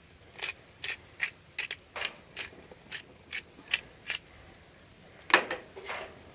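Hand pepper grinder being twisted over the chicken: about ten short grinding rasps at roughly two or three a second. About five seconds in comes a louder clack, then a softer one.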